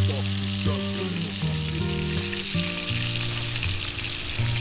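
Flour-breaded fish frying in hot oil in a pan, a steady sizzle, with background music of long held notes playing over it.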